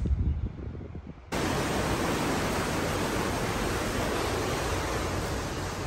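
Strong sea wind rushing over the microphone, cutting in abruptly about a second in and then holding steady; before it, only a low muffled rumble.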